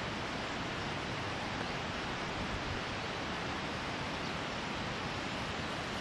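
Steady rushing of flowing water, an even hiss with no breaks.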